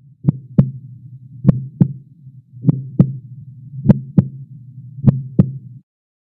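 Heartbeat sound effect: five double thumps in a lub-dub rhythm, a pair about every 1.2 seconds, over a low hum. It cuts off suddenly near the end.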